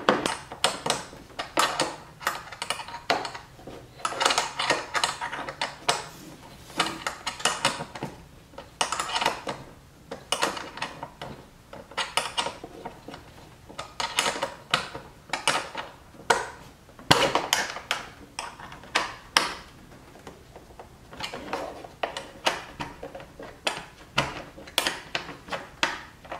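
Irregular metallic clicks and clinks of hand tools and bolts, coming in quick clusters with short gaps, as the rear diffuser fins are fastened up under a car's rear bumper.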